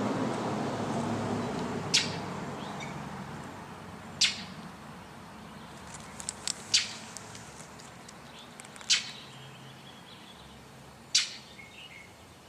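Northern mockingbird fledgling giving short, harsh begging calls for food, one about every two seconds, five in all.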